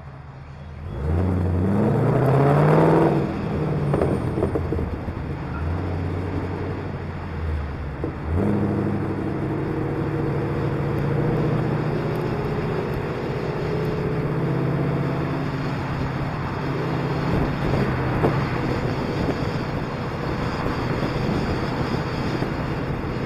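Car engine pulling away from a standstill about a second in, rising in pitch as it accelerates, with two brief breaks at gear changes, then running steadily at cruising speed with road and wind noise.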